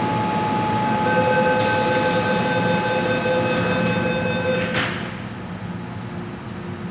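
Door-closing warning on an MTR M-train and its platform screen doors: a steady beeping tone held for about four seconds, then the doors shut with a clunk about five seconds in. Under it runs the standing train's steady hum.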